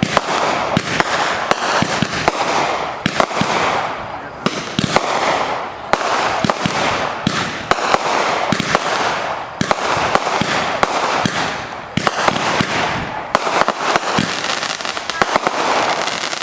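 Fireworks display: a rapid, unbroken barrage of bangs, several a second, over a dense crackle.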